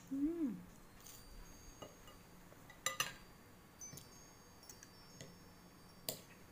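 Fork and knife clinking on a ceramic plate at scattered moments: a few sharp clinks, some with a light ring, the strongest about three seconds in. Near the start there is a short pitched sound that rises and then falls.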